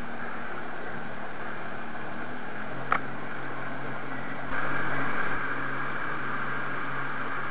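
Outboard motor of a RIB running under way, with wind and water rushing past. A single sharp click about three seconds in, and a brief louder rush of noise just before the middle.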